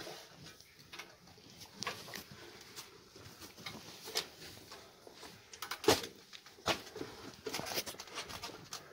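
Irregular knocks and scrapes of a shovel working dry goat and sheep manure, loading it into a trailer; the loudest knock comes about six seconds in.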